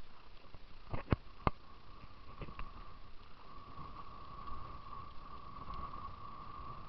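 Camera handling noise: a few sharp knocks about a second in and two fainter ones a moment later as the camera is picked up and turned, over a steady faint whine and a low wind rumble on the microphone.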